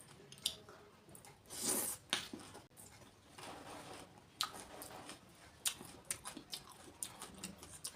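Close-up eating of golgappa (pani puri): crisp puri shells crunching and wet chewing, with scattered sharp crackles and one louder crunch about two seconds in.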